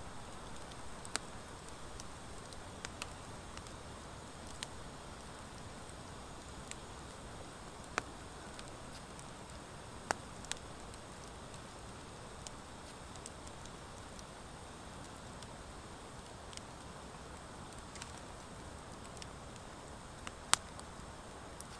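Wood fire of driftwood and dry hardwood logs burning in a fire pit: a steady soft hiss with scattered sharp crackles and pops, the loudest pop near the end.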